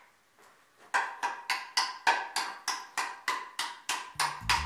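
A few faint knocks, then about a second in background music starts: a steady beat of short, evenly pitched percussive notes, about four a second, with a bass line coming in near the end.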